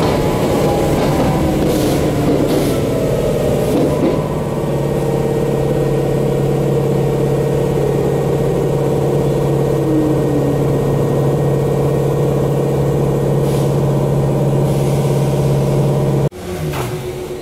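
Former Hankyu electric train running and slowing into a station, heard from inside the car: a rumbling ride with a steady low hum and a few falling whines, the rumble easing about four seconds in. About sixteen seconds in, the hum cuts off abruptly as the train comes to a stop, leaving a quieter steady tone.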